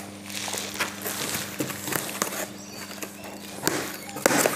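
Knife slitting the packing tape and cardboard of a parcel box, with scraping, rustling and small knocks, and a louder rasp of cardboard near the end. A steady low electrical hum runs underneath.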